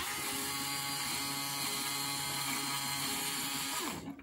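Small Lego Technic electric motor running, driving a worm gear in a reciprocating mechanism: a steady whirring whine that starts abruptly and stops shortly before the end.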